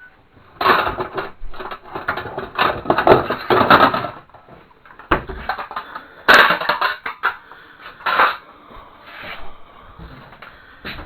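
Clattering and knocking as hard objects are handled and set down, in a dense run of knocks over the first few seconds, then a sharp loud clatter about six seconds in and a few lighter knocks after it.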